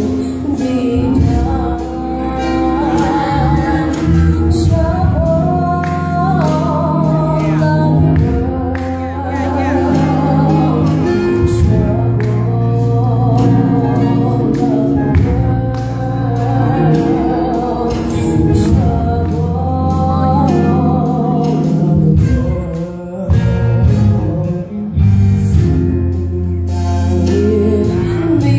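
A young woman singing a gospel song solo into a handheld microphone, amplified through the church sound system, with vibrato on her long held notes. Steady low accompaniment notes sound underneath.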